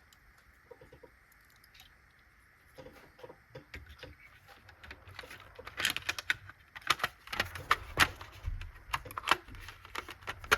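Small plastic clicks and clatter of a model train's body shell and parts being handled and fitted back together. They start a few seconds in and grow busier and louder toward the end.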